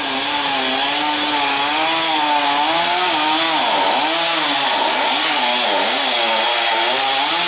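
Chainsaw running at full throttle, cutting into the trunk of a dead sugar maple. Its pitch sags and recovers several times as the chain loads up in the cut, most deeply in the middle.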